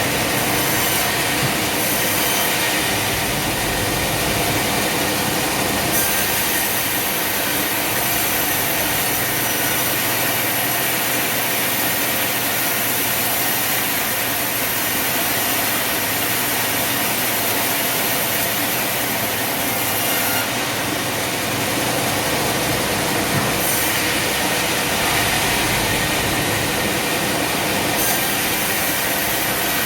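Sawmill saw cutting through a Bubinga log: a loud, continuous sawing noise whose high hiss shifts a few times as the cut goes on.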